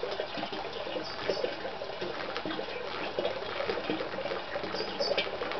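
Water being poured from a can into a 20-litre plastic drum, splashing steadily as the drum fills.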